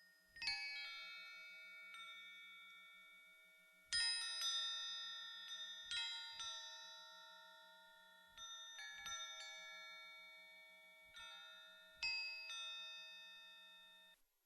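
Bell-like metallic chime tones struck one at a time at an uneven pace, about nine strikes, each note ringing out and fading slowly, several overlapping.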